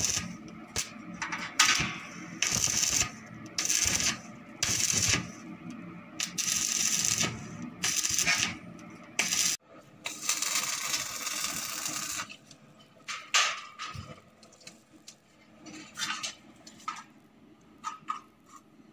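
Electric arc welding in a string of short tack welds: the arc crackles and hisses for half a second to a second at a time, about eight times. In the second half, sharp metallic clinks come as steel bars are handled.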